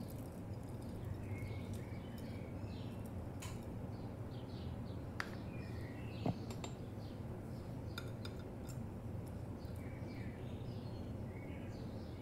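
A couple of sharp clinks of a utensil on a ceramic plate, about five and six seconds in, over a steady low hum, with short high chirps like small birds scattered throughout.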